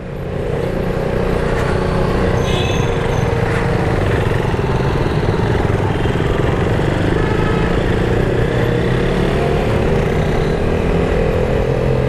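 Motorcycle engine running as the bike pulls away and rides on, with wind and road noise rushing over the on-bike microphone. The sound swells over the first second, then holds steady, and the engine note climbs slightly near the end.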